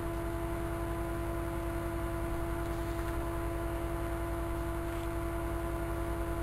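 Steady electrical hum, a mix of several held tones led by a mid-pitched drone, over a faint hiss; it stays unchanged throughout.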